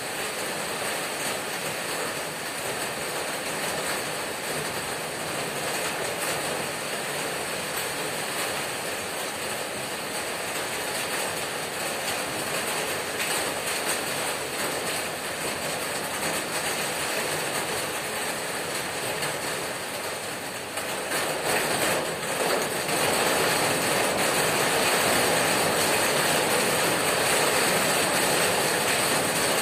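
Heavy rain hammering on a corrugated tin roof: a dense, rapid patter of drops striking the metal sheets. The downpour grows louder about two-thirds of the way through.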